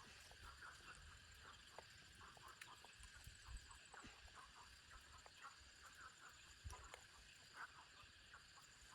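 Quiet rural background: a faint, steady, high-pitched insect drone with scattered short, soft animal calls, such as clucking fowl.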